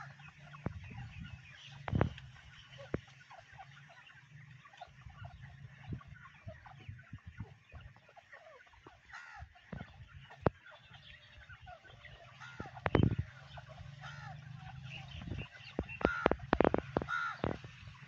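Young grey francolins giving many short, soft chirping calls, scattered and overlapping, with a few louder thumps about two seconds in, around thirteen seconds, and again near the end.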